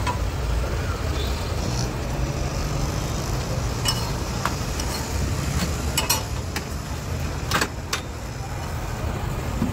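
Several sharp metal clicks and taps, about halfway through, from a steel spatula working a paratha on a black iron tawa, over a steady low rumble.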